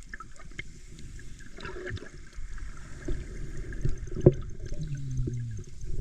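Water splashing and trickling, with scattered knocks and a low rumble, as a fishing net is worked in the water. A short low sound falls in pitch near the end.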